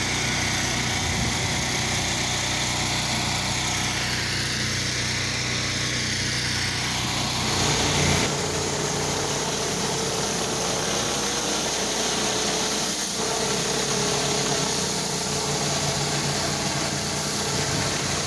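Gas-engine pressure washer running steadily under the hiss of spraying water. About eight seconds in, the engine's note shifts and a steady hum holds from there on.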